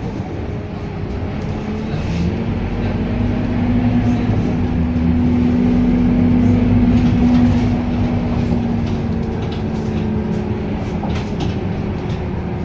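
Scania K230UB city bus's diesel engine pulling away under load, its hum growing louder and a little higher over the first half, then easing off, with light rattling ticks near the end.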